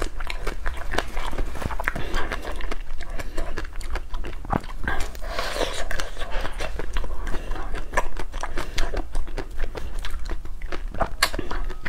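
Close-miked eating sounds: a frozen yellow ice cream bar being bitten and chewed, with many short wet mouth clicks and smacks.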